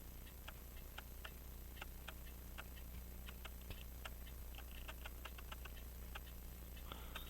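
Faint, irregular small clicks and brief light scrapes of small metal hand tools working a tiny watch part, over a steady electrical hum.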